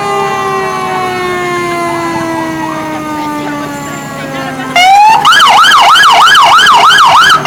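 Fire truck sirens: one siren winds slowly down in pitch, then just under five seconds in a louder siren cuts in, rises and switches to a fast yelp of about three sweeps a second.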